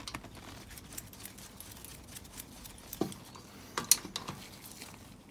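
Oil drain plug being threaded by hand into a Moto Guzzi V7's sump: faint scattered clicks and glove rustling, with a few sharper clicks about three and four seconds in.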